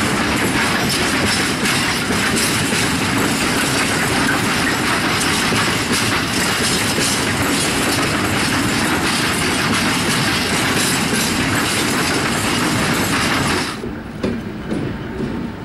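Long freight train of empty flat wagons rolling past, wheels clattering over the rail joints in a steady clickety-clack. The clatter stops abruptly near the end, leaving a much quieter background.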